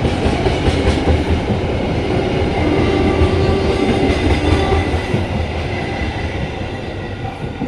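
Train passing: the rumble and rattle of rolling stock, with a faint horn chord sounding again about three to five seconds in, fading away toward the end.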